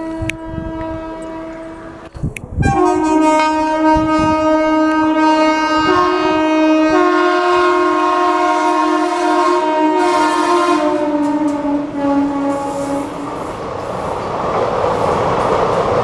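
Horn of an Indian Railways WAP-class electric locomotive: a chord blast for about the first two seconds, then after a brief gap a long, loud blast of about ten seconds that drops slightly in pitch toward its end. After the horn stops, the coaches rumble and clatter past.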